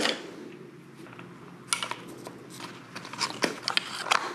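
Metal hand tools clinking and clicking as they are sorted through in a tool-chest drawer: short scattered runs of small clicks, about two seconds in and again near the end.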